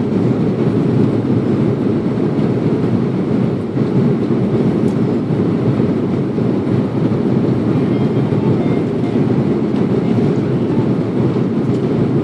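Aeroplane landing, heard as a steady low rumble that holds an even level without rising or falling.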